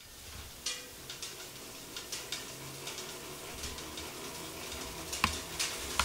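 Hand-cranked 35 mm film rewinder winding a 600-metre reel: a steady rustling whir of film running onto the spool, with light irregular ticks and a few sharper clicks, the sharpest about five seconds in.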